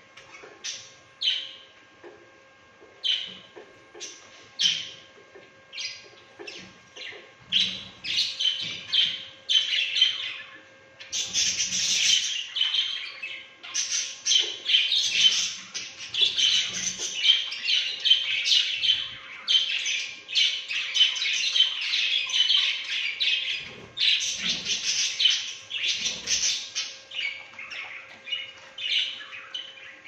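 A colony of budgerigars chirping and warbling: scattered single chirps at first, building after several seconds into dense, overlapping chatter from many birds, easing slightly near the end.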